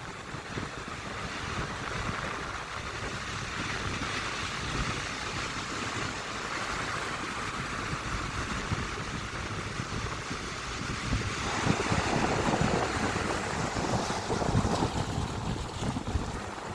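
Ocean surf and wind, with wind rumbling on the microphone. About eleven seconds in, the sound changes abruptly and the waves become louder.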